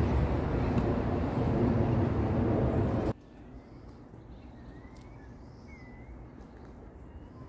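Wind buffeting the microphone, a loud rushing that cuts off abruptly about three seconds in. A quiet outdoor ambience follows, with a few faint high chirps.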